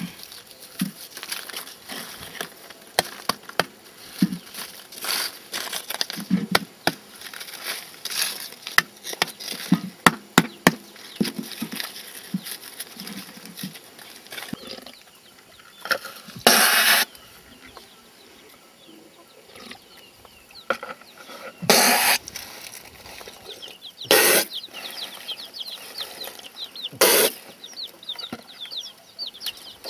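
Dried dung cakes snapped and crumbled by hand, a run of sharp cracks, then several short rattling pours of dung pieces from a plastic bucket onto a pile. Chickens cluck in the background, with chicks peeping near the end.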